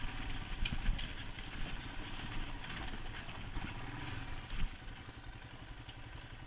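Royal Enfield Himalayan's single-cylinder engine running at low revs as the bike rolls slowly over a rough track, with some clatter from the bike. There is a short thump about four and a half seconds in.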